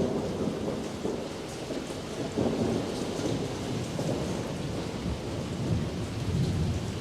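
Steady rain with low rolling thunder that swells a few times.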